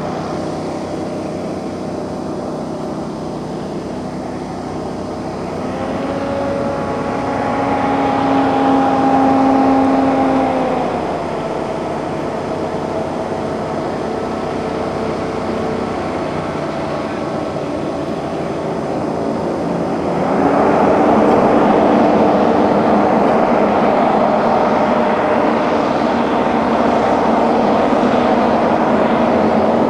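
Rescue hovercraft's engine and ducted propeller running steadily as it crosses water and mud. The pitch rises about six seconds in and falls back near eleven seconds, and the sound grows louder with a rushing noise about twenty seconds in as the craft comes closer.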